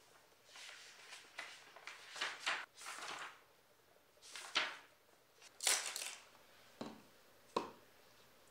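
Sketchbook pages being turned by hand: a series of short papery swishes and flaps, with a few sharper flicks in the second half.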